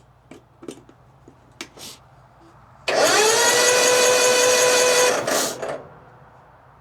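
Electric starter cranking the 2004 Hustler zero-turn mower's twin-cylinder engine for about two seconds, a steady whine that climbs quickly at the start and then fades out, with the engine never firing: it has no spark. The starter sounds a little less thrilled.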